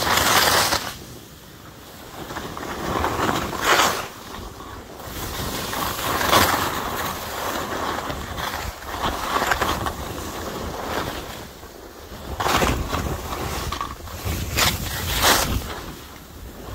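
Skis sliding and carving on snow, with a rushing swoosh of the edges in each turn, several times over, and wind rushing over the microphone.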